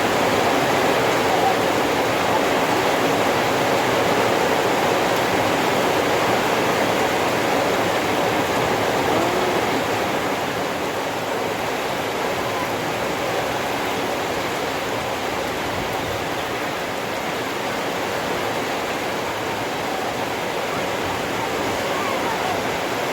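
Heavy rain pouring down as a steady, dense rush of noise, easing slightly about ten seconds in.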